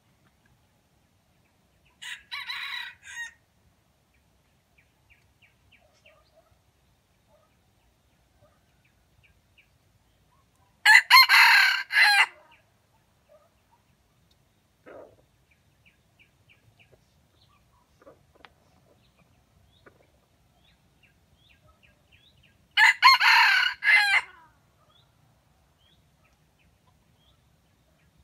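Red junglefowl rooster crowing three times, roughly ten seconds apart. Each crow is short, about a second and a half. The first is fainter and the second and third are loud.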